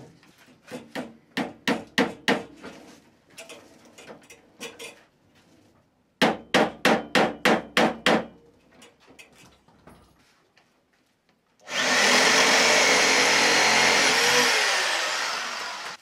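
Hammer blows driving nails in broom-making, in irregular runs and then a quick run of about eight strikes at about four a second. After a pause, an electric motor runs for about four seconds and winds down, falling in pitch as it stops.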